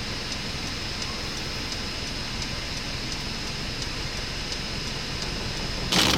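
Steady road and engine noise inside a moving vehicle, with a faint high whine. Near the end, a sudden loud rush of noise sets in as heavy rain begins hammering the vehicle.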